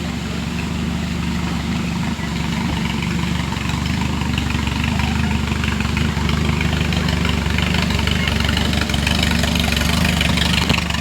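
Off-road vehicle engine running steadily at low revs, slowly getting louder, with a hiss that grows toward the end.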